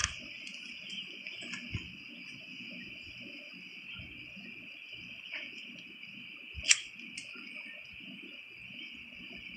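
Insects keep up a steady, high, shrill drone. A lighter is struck once, a sharp click about two-thirds of the way through.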